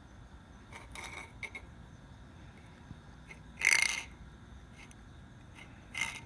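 Small bowl scraping and knocking against the paving stones as a cat eats from it. There are a few light clicks, one louder scrape about midway, and another near the end.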